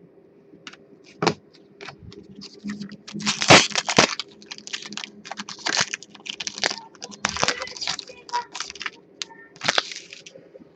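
Trading card pack wrapper being torn open and crinkled, with cards being handled and flicked against each other: a run of sharp crackles, rustles and clicks, loudest about three and a half seconds in.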